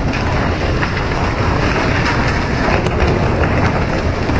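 Steady rumbling, rushing noise on the deck of a pole-and-line tuna fishing boat under way: the ship's engine together with the hiss of water spraying over the side.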